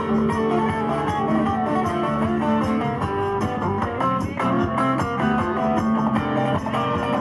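Live country band playing an instrumental break, with strummed acoustic guitars over an electric bass line and a steady beat.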